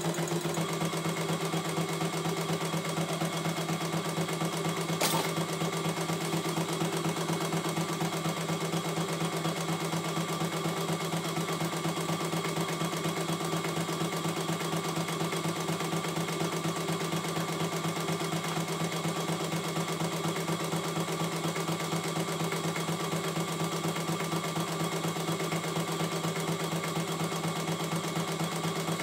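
CNY E900 portable computerized embroidery machine stitching a design, its needle running at a steady, fast, even rhythm. A single click about five seconds in.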